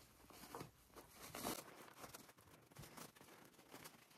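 Near silence, with faint, scattered rustles of fabric being scrunched by hand as elastic is pushed through a sewn bias-tape channel.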